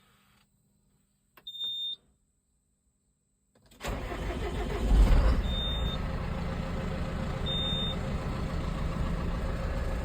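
A short electronic beep, then about four seconds in the John Deere 6430's diesel engine starts and settles into a steady idle, with two faint beeps over it. It runs smoothly with no fault codes now that the chafed fuel temperature sensor wire has been spliced.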